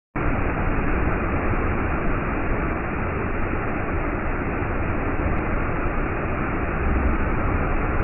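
Waterfall plunging into a rock pool: a steady rush of falling and splashing water that never lets up.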